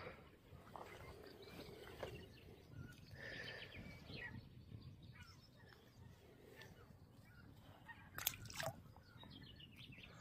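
Quiet outdoor ambience with faint, scattered bird chirps and soft clicks and rustles of gloved hands handling fishing tackle. The loudest sound is a short, sharp click about eight seconds in.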